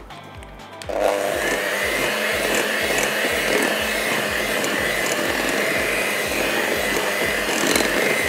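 Electric hand mixer switched on about a second in and running steadily with a high whine, its beaters working cupcake batter in a glass bowl.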